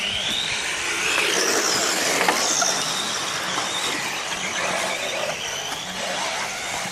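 Radio-controlled model cars racing on a dirt track, their motors whining high and gliding up and down in pitch as they speed up and slow down through the corners.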